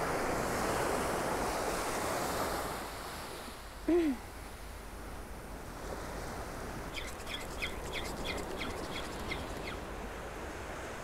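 Small waves breaking and washing up a sandy beach. A short pitched call rises and falls about four seconds in, and a quick run of high ticks follows in the second half.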